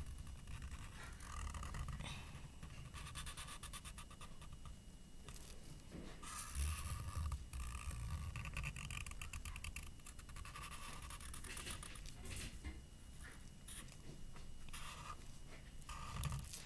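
Felt-tip marker drawing on paper: short scratchy strokes coming in runs, with pauses between.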